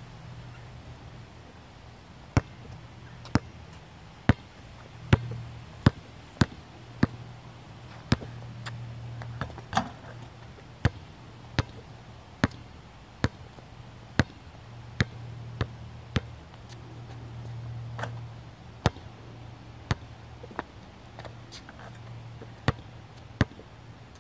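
Basketball being dribbled on an outdoor court: sharp, slapping bounces at an uneven pace, about one every half second to a second, starting a couple of seconds in, over a low steady hum.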